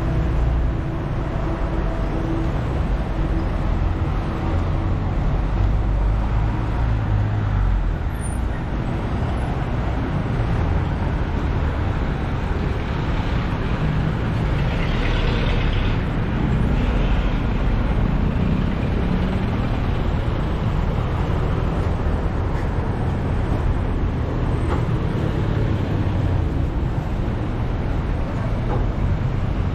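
Busy street traffic: the engines of a minibus, cars and jeepneys running and passing close by as a steady low rumble, heaviest in the first several seconds.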